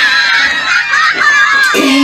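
Loud, high-pitched squealing that wavers up and down in pitch, with music.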